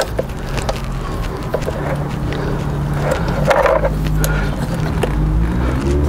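Motorcycle drive chain clinking as it is handled and fed onto the rear sprocket, with a dog barking once about midway over a steady low hum.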